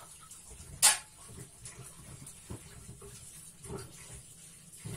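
A single sharp click or knock about a second in, then a few faint thuds: handling sounds of someone working at a kitchen counter or sink, out of sight.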